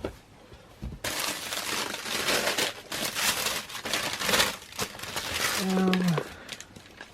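Packing paper and packaging crinkling and rustling in quick, uneven bursts as a sneaker box is unpacked by hand. It starts about a second in and stops about five and a half seconds in.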